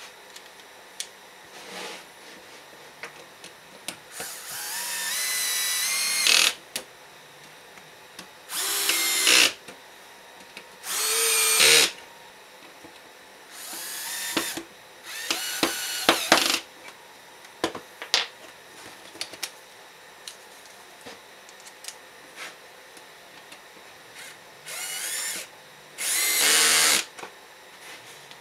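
Festool CXS cordless drill driving pocket-hole screws into wood in about seven short runs. The motor whine rises in pitch as each run spins up, with a longer gap of small handling clicks in the middle.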